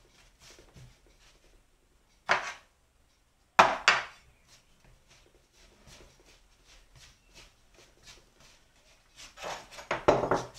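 Sourdough pre-dough being kneaded by hand on a flour-dusted stainless steel worktop: soft rubbing and pressing, broken by a few sharp thumps, the loudest about three and a half seconds in and a quick cluster near the end.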